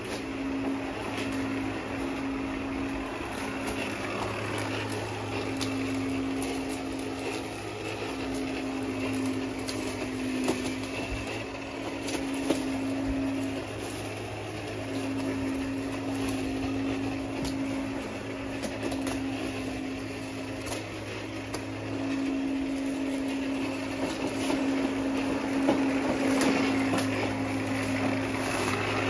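Worx 40-volt cordless electric lawn mower running while being pushed across grass and cutting: a steady electric-motor whine and blade hum that swells and fades as the mower moves about, louder near the end as it comes close.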